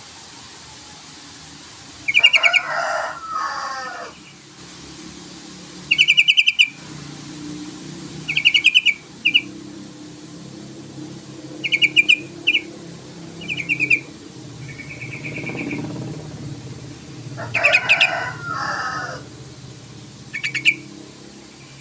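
Yellow-vented bulbul (trucukan) calling: about seven short bursts of rapid chattering notes a few seconds apart, two of them running into a lower bubbling phrase. A faint low hum runs underneath through the middle.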